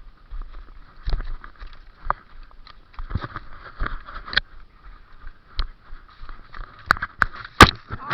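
Rustling and scuffing movement noise with irregular knocks, as from a player moving with a worn camera, and a few sharp clicks about seven seconds in, the loudest near the end.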